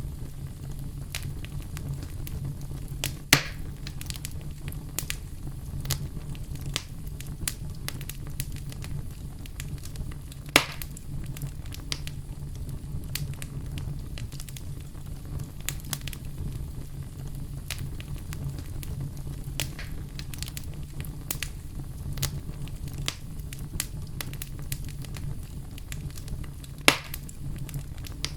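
Wood fire burning in a fireplace, crackling with frequent small snaps over a steady low rumble. Three louder pops stand out: one about three seconds in, one near the middle, and one near the end.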